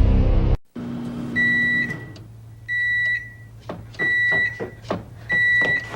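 Microwave oven beeping four times, each beep about half a second long and evenly spaced, over a low hum with a few clicks between the beeps.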